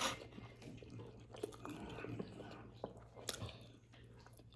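A person chewing food close to the microphone: irregular small clicks and mouth noises, over a faint steady low hum.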